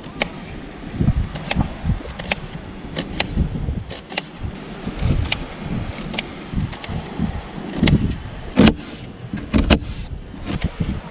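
Knife slicing a peeled onion half on a plastic table top, the blade tapping the board with each cut: crisp taps about one or two a second at an uneven pace.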